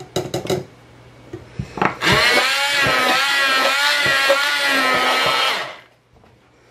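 Handheld immersion blender motor running for about three and a half seconds, starting about two seconds in, its whine wavering in pitch as it blends egg, yogurt and flour, then switching off. A few quick knocks come just before it, near the start.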